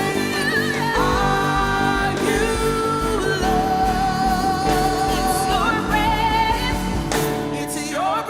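Live worship band playing, with a singer holding long, wavering notes over a steady bass.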